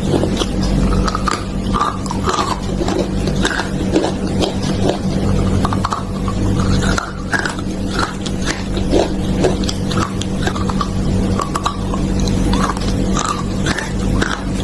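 Continuous crunching and chewing: a dense run of small cracks and crackles, with short higher-pitched blips, over a steady low hum.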